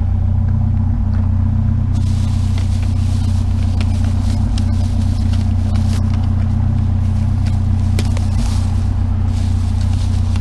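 Truck engine idling steadily with a low hum. From about two seconds in it is joined by rustling and a string of sharp knocks and rattles of items being handled.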